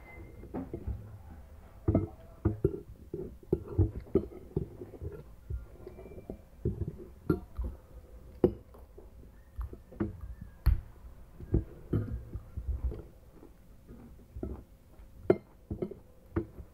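Eating sounds: a metal spoon clinking and scraping on a ceramic plate of fried rice, with chewing and a plastic bag crinkling. They come as irregular short knocks and clicks, with a few sharper clinks.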